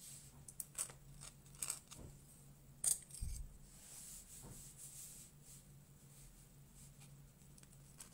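Dip pen nib scratching and ticking on watercolour paper in short, quick strokes as ink is laid down, with one louder click about three seconds in. A faint steady low hum runs underneath.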